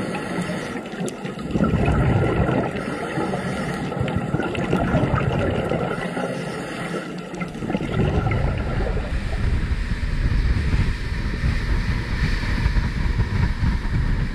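Muffled underwater bubbling and rushing of scuba divers' exhaled bubbles, heard through a camera housing. After about eight seconds it gives way to a dive boat under way: a steady low motor rumble with wind buffeting the microphone.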